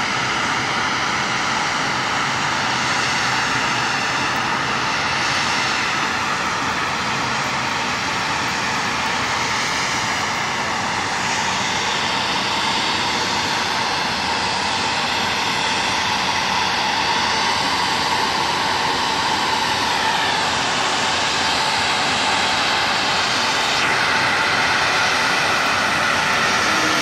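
Delta CRJ-900's twin rear-mounted turbofan engines running at taxi power: a steady jet whine over a rushing roar, its pitch shifting a few times as the jet taxis past and turns.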